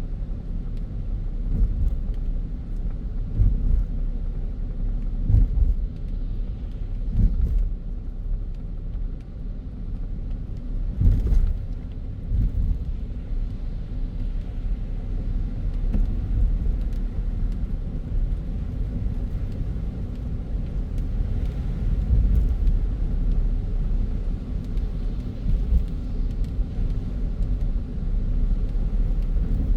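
Car driving on a city road: a steady low rumble of engine and tyre noise, with a few brief knocks, the clearest about eleven seconds in.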